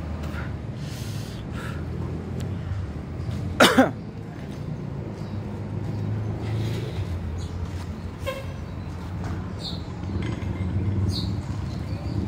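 Intercity bus's diesel engine running low and steady as the bus pulls slowly across the yard, with one short horn toot about four seconds in.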